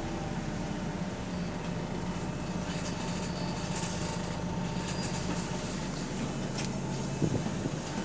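Bus engine heard from inside the passenger saloon, running with a steady drone and a thin steady whine. There is a single knock about seven seconds in.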